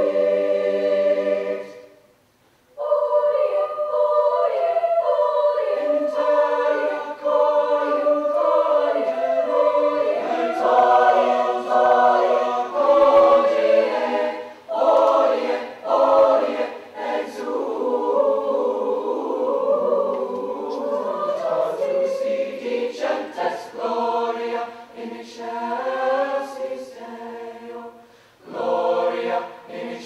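Mixed-voice high school choir singing, with short breaks between phrases about two seconds in and again near the end.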